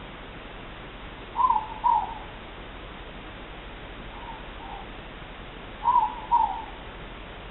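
Morepork (ruru) owls giving the two-note "more-pork" call: two loud calls about four and a half seconds apart, with a fainter two-note call between them, over a steady hiss.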